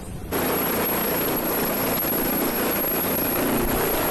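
Leonardo twin-turbine helicopter hovering low: steady rotor and engine noise with a steady high whine. It starts abruptly about a third of a second in.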